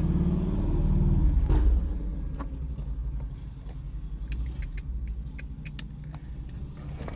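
A motor vehicle's low rumble, loudest about a second in and easing off, then a steadier low drone under a run of small sharp clicks and taps from hands working plastic trim and wiring.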